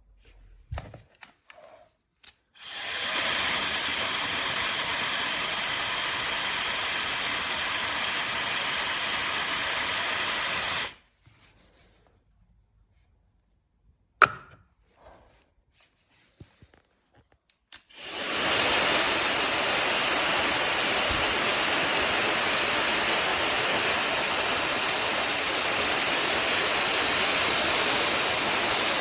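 SnugLuv 160,000 RPM high-speed hair dryer blowing a steady rush of air. It comes up to speed about two and a half seconds in, cuts off after about eight seconds, and starts again after a gap of about seven seconds, running to the end. A single sharp click falls in the gap.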